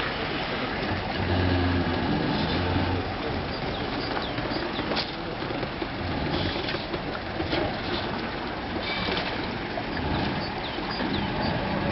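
Outdoor background noise with short bird chirps several times through it, and a low rumble that comes and goes, strongest early on.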